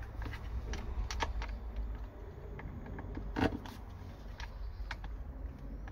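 Scattered small metallic clicks and taps from seat-belt mounting hardware (bolt, nut and spacer) being handled and worked, with one louder knock about three and a half seconds in, over a steady low rumble.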